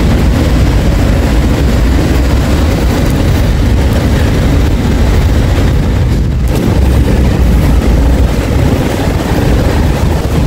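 Steady, loud rush of road traffic, cars and a city bus moving in the lanes alongside, dipping briefly about six seconds in.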